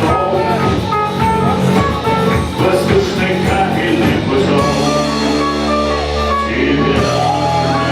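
A live band playing. Instruments carry melodic lines, and held low notes sustain through the second half.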